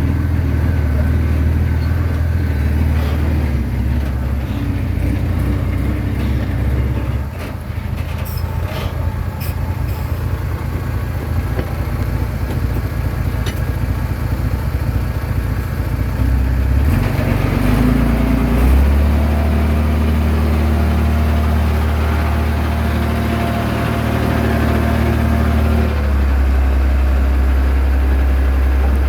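Diesel engine of a Komatsu D21A bulldozer running under load, a steady low drone whose pitch shifts about seven seconds in and again past halfway as the throttle changes.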